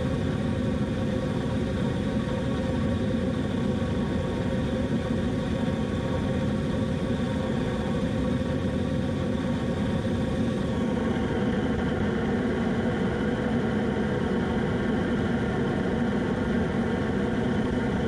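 Leaf-blower-fed waste-oil foundry burner running steadily: a broad rushing noise with the blower motor's steady tones through it. About ten seconds in the higher part of the sound drops back as the burner is turned down to a smaller flame.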